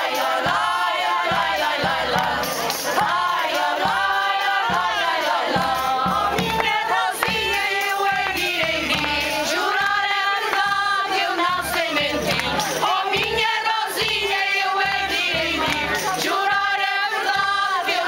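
A mixed group of men and women singing a song together loudly, accompanied by a small wooden pipe and a stick-beaten hand drum.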